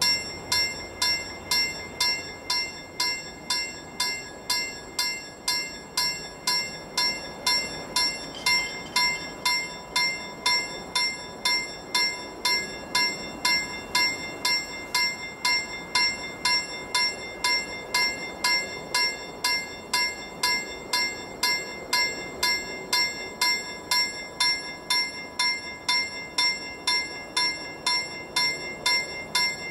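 Railway level crossing warning bell ringing in even strokes, about two a second, starting suddenly: the crossing's alarm that a train is approaching and the barriers are coming down.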